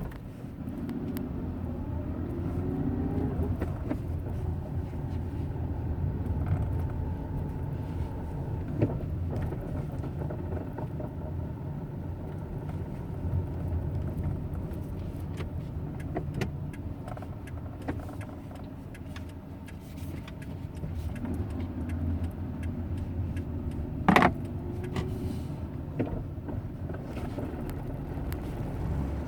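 Hyundai Eon running at low rpm with a steady low drone, its pitch rising a few times, scattered light clicks and one sharp knock about three quarters of the way through; this is the low-rpm grinding noise the owner is trying to show.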